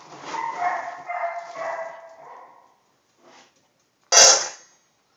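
A dog whining in drawn-out, pitched tones over the first couple of seconds. About four seconds in comes one short, loud, sharp sound with a faint ring after it.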